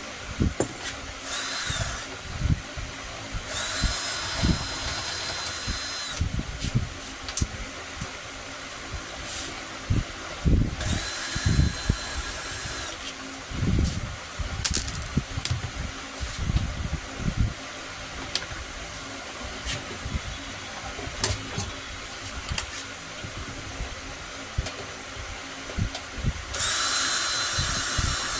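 A handheld power drill runs in four short bursts of high whine, each lasting a second or two. Between the bursts there are knocks and clatter of parts and tools being handled.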